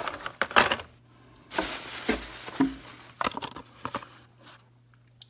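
Carded Hot Wheels cars being handled and sorted: cardboard backing cards and plastic blister packs rustling and clacking against each other, with a longer rustle about a second and a half in.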